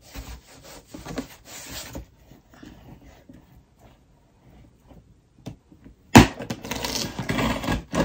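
Scissors cutting the packing tape along a cardboard box's seam, the blade scraping and slitting through tape and cardboard. There are a few soft strokes at first, then a sudden, loud, continuous scraping from about six seconds in.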